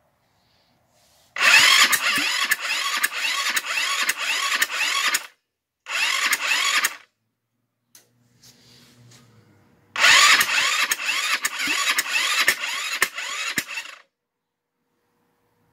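GY6 150cc single-cylinder scooter engine being turned over by its electric starter, powered through a makeshift jumper-wire hookup from the battery. It cranks in three bursts of about four seconds, one second and four seconds, with a whirring and regular pulses about three times a second, and each burst cuts off suddenly.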